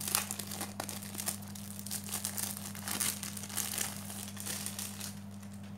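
Clear plastic wrapping crinkling and crackling in irregular bursts as a pack of watercolour postcards is pulled out of it and handled, easing off near the end. A steady low hum runs underneath.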